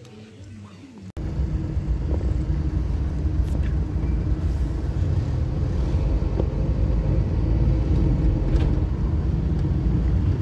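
Steady low rumble of a car's engine and road noise, heard from inside the cabin while driving in traffic. It starts abruptly about a second in, after a quieter stretch.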